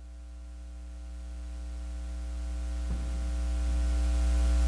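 Steady electrical hum with a low buzz, growing steadily louder, with a faint click about three seconds in.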